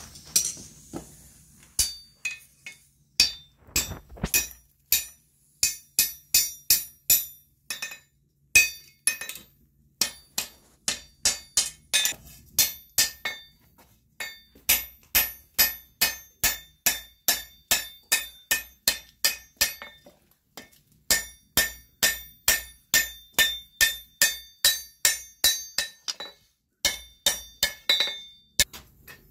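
Blacksmith's hand hammer striking a red-hot steel strap on the anvil, with the anvil ringing after each blow. The blows come in steady runs of about two a second, with a few short pauses between runs.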